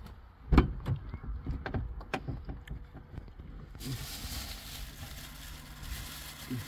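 A heavy thump about half a second in, then a string of small knocks and plastic-bag rustles as bags of food are handled on a car's back seat, giving way to a steady hiss in the last few seconds.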